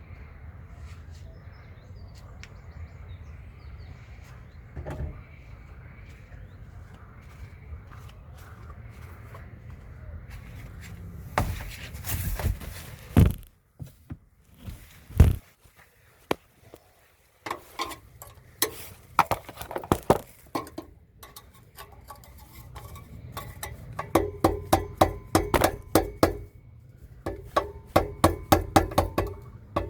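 A steady low hum, then a series of sharp metallic clinks and knocks, coming in quick runs of several a second near the end.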